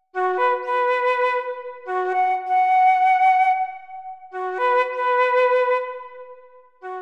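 Background music: a flute playing a slow melody of long held notes in phrases. Each phrase opens with a short low note and steps up to a sustained higher one, with a brief pause before the last phrase.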